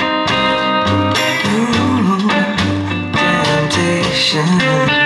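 Blues song with guitar and singing, played through a homemade 8-inch full-range driver in a cardboard paper-box enclosure. The driver has a paper cone and an underhung neodymium motor.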